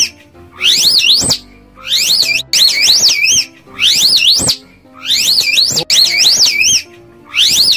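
A high-pitched warbling whistle repeated about once a second, each burst rising and falling several times, over quiet background music.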